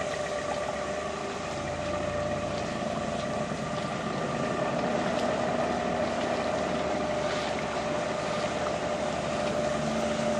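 Motorboat engine running at a steady speed, with a constant whine over a wash of noise.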